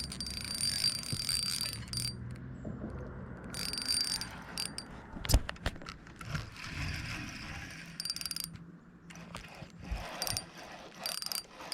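Fishing reel working while a hooked bass is reeled in: the handle is cranked with a ratcheting rattle, and in a few short high-pitched spurts the drag gives line as the fish pulls.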